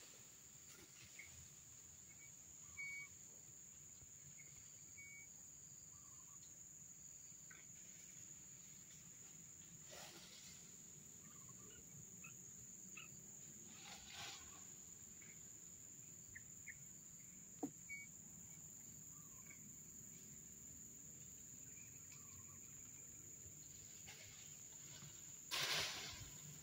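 Quiet rural ambience: a steady high insect drone, with a few faint short chirps and brief rustling noises, the loudest one just before the end.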